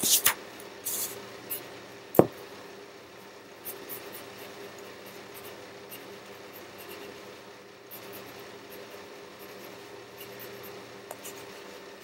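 Handling noises as he moves with the blanket: a rustle and knocks in the first second and a single sharp click about two seconds in. After that there is only a faint steady hum with a few small ticks.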